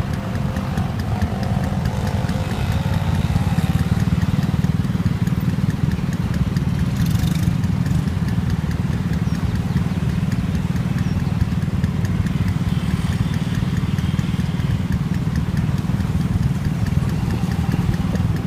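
A motor vehicle engine running steadily: an even low rumble with rapid regular pulses, and a brief hiss about seven seconds in.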